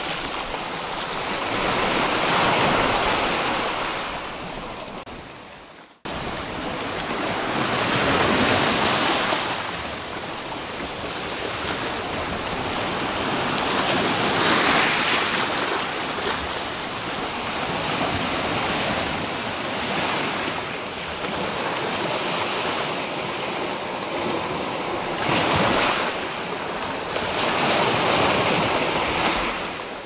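Small sea waves breaking and washing up a pebble beach, the surf swelling and ebbing every few seconds. It cuts out for an instant about six seconds in.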